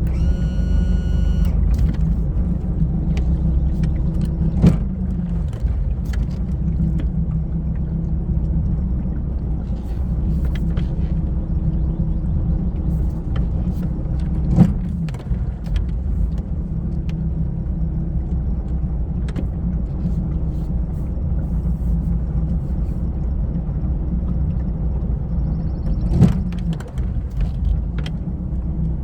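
A 1991 Sea Ray's older four-cylinder engine running steadily, with three sharp thumps spread through it and a short high tone about a second in.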